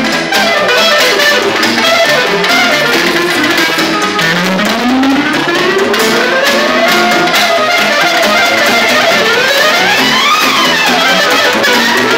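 Live band music led by an electronic keyboard, whose melody line slides in long pitch-bend glides: one slow rise about four seconds in, and another rise and fall near the end. Underneath are a dense accompaniment and drum strokes from timbale-type drums struck with sticks.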